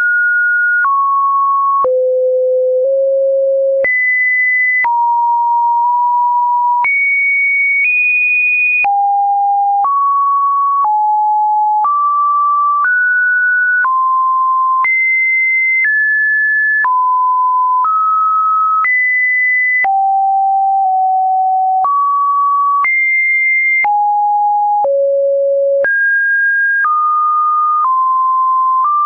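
Computer-generated pure sine-wave test tones, one per second, each holding a steady pitch and then jumping to a new, random-seeming pitch. The pitches range from fairly low to fairly high, with a faint click at every change.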